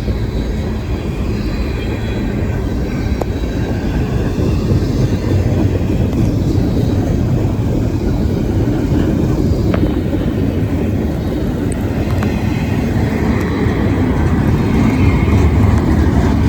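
Freight train rolling past with a steady rumble that grows a little louder near the end.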